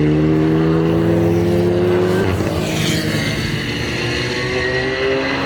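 GT3 race car engine accelerating hard. Its pitch climbs through a gear, drops at an upshift about two seconds in, then climbs again through the next gear.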